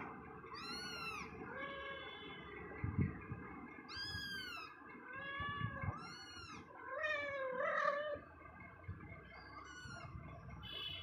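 A cat meowing repeatedly, about six separate meows, the longest one drawn out and rising near the end, with a soft knock or two in between.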